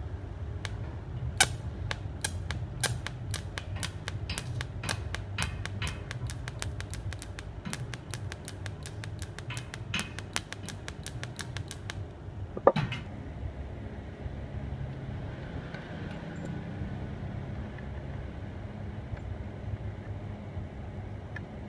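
Steady low hum of a welding machine, with a run of sharp, irregular clicks for about the first twelve seconds, then one louder click and the hum alone.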